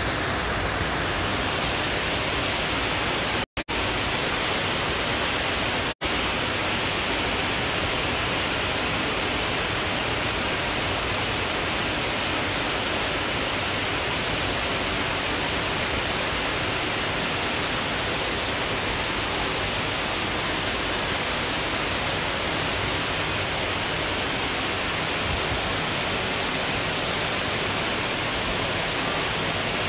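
Heavy rain pouring down in a steady, even hiss, with the sound cutting out briefly twice a few seconds in.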